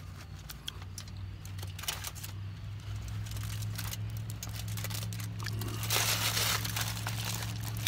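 Aluminium foil and a banana leaf being folded and crinkled by hand, with scattered crackles that swell into a loud stretch of foil crinkling about six seconds in as the bundle is wrapped up. A low steady hum runs underneath.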